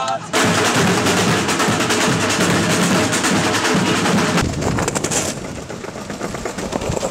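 Street-parade drum band playing a fast, dense snare-drum rhythm. About four seconds in it cuts off sharply to a low rumble of longboard wheels rolling on pavement.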